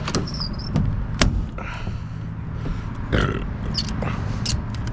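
Sharp knocks and clanks with a few short high squeaks as a tie-down strap and chain are worked loose from a rooftop air-conditioning unit, over a steady low hum.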